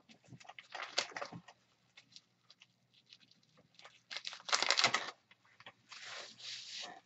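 Rustling and crinkling of plastic packaging as a beer can is unwrapped by hand. It comes in several bursts, the loudest lasting about a second halfway through.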